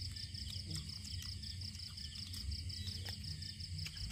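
Night insects chirring steadily in a continuous high, pulsing trill, over a low steady hum and a few faint clicks.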